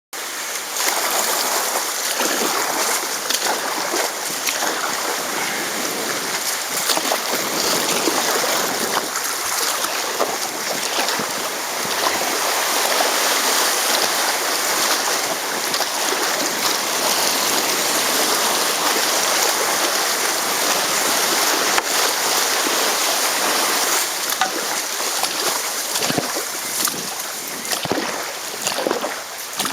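River water rushing steadily around a canoe running downstream, with scattered short splashes.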